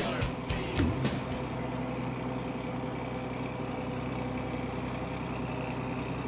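Fishing boat's engine running steadily under way, an even low drone heard from the deck.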